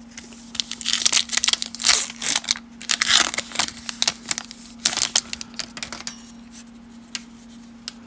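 Plastic-foil wrapper of a Topps baseball card pack crinkling and tearing as it is ripped open by hand for about five seconds, followed by a few light clicks as the cards are handled.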